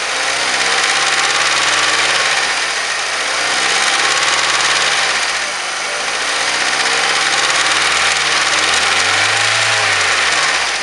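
2007 Mazda 3 1.6-litre engine running with a knock in it, its speed rising and falling gently a few times.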